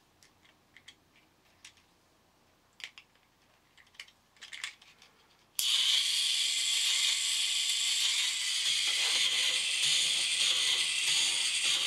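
Faint clicks and taps from a screwdriver on the small robot's screws. About halfway through, a TT gearmotor switches on suddenly and runs steadily, its gears driving the cam-and-linkage legs of a 3D-printed four-legged walker; most of the sound is high-pitched.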